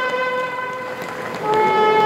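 Trumpet playing a slow tune in long held notes; a new, slightly lower note starts about one and a half seconds in, louder than the fading note before it.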